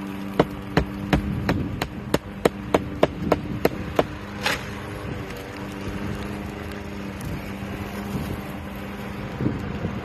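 Hammer driving nails into roof shingles: about a dozen sharp blows at roughly three a second, stopping about four seconds in. A steady low hum runs underneath.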